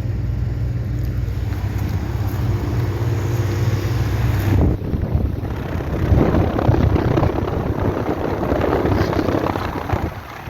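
A 3.5-ton central air conditioner condensing unit running, with a steady low hum, its compressor thought to be an older Copeland scroll. From about five seconds in, a louder rushing of air over the microphone covers the hum.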